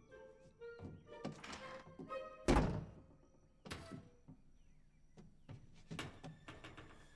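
Film score with sparse held notes, under a series of thumps and knocks as a wooden cabinet under a laundry counter is banged on and falls open. The loudest thump comes about two and a half seconds in.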